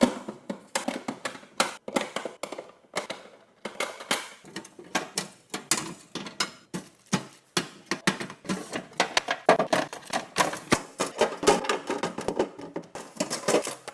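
Containers and food items being set down and arranged on refrigerator shelves: a rapid, irregular run of clicks, taps and light knocks of plastic and glass.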